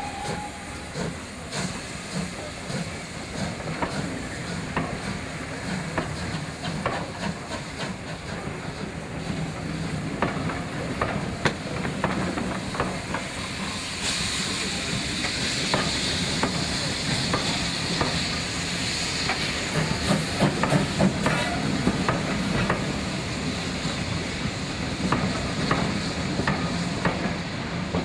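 Steam locomotive working along the line: a continuous hiss of steam over a steady low rumble, with frequent clanks and knocks. The hiss grows louder about halfway through.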